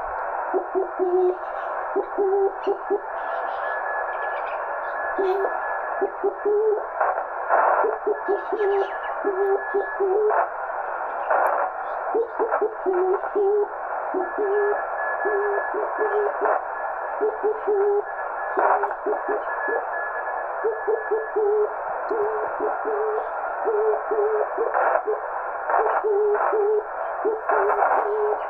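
Morse code received on a shortwave receiver: low-pitched keyed dits and dahs over steady band-limited receiver hiss. The notes chirp in pitch, the sign of a home-built single-valve 4-watt CW transmitter with an unstable oscillator. A faint steady higher whistle comes and goes in the background.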